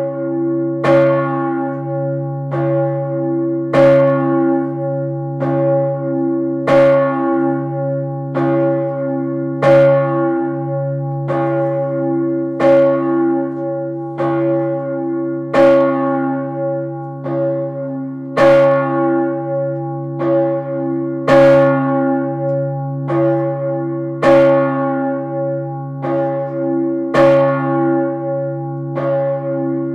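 Large swinging church bell, the 3200 kg Urban tuned to about C-sharp/D-flat, ringing with regular strokes about every one and a half seconds over a continuous deep hum that carries between the strokes.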